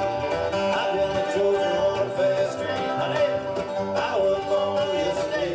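Bluegrass band playing live: picked banjo and acoustic guitar over a plucked upright bass.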